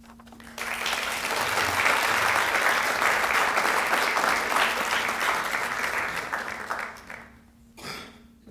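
Audience applauding: a dense, steady round of clapping that starts about half a second in and dies away after about seven seconds.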